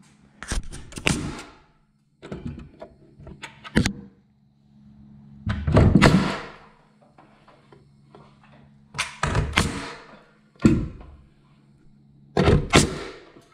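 Framing nailer driving nails to sister new lumber onto a 2x6 ceiling joist: sharp thunking shots in about six bursts, often several in quick succession.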